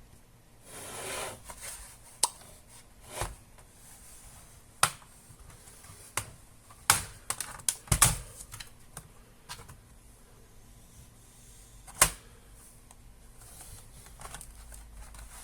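Irregular sharp plastic clicks and taps from laptop case parts being handled during disassembly, with a brief scraping rustle about a second in.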